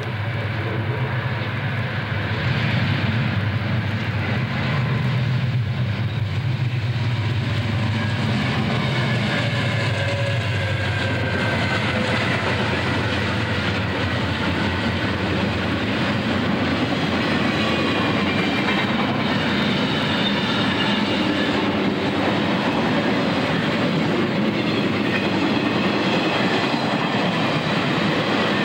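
Diesel freight train passing close by. The locomotives' engines drone low first, then the flatcars carrying truck trailers go by with a steady rolling clatter and faint high wheel squeal.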